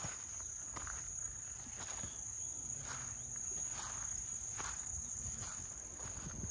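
Insects keeping up a steady, high-pitched drone, with footsteps on a dirt path about once a second.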